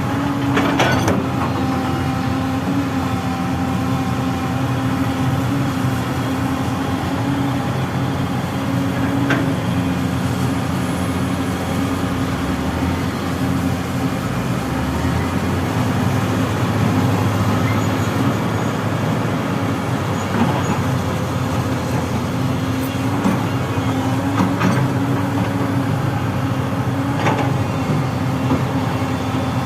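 Hyundai excavator's diesel engine running steadily while digging and loading soil, with a few short sharp knocks now and then.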